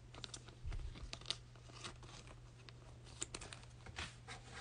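Trading cards and foil card packs being handled: faint scattered crinkles, rustles and light clicks over a faint steady low hum.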